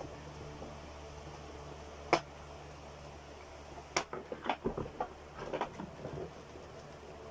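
Plastic toy parts and packaging being handled: one sharp click about two seconds in, then a run of knocks and rattles a couple of seconds later, over a faint steady low hum.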